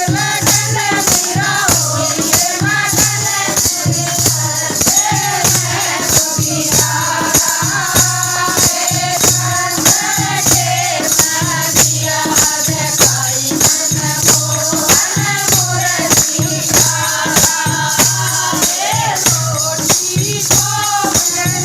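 Hindi devotional bhajan: voices singing a melody over a steady, rhythmic shaken-and-struck percussion beat.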